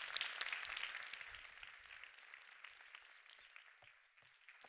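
Audience applauding, dying away over about four seconds.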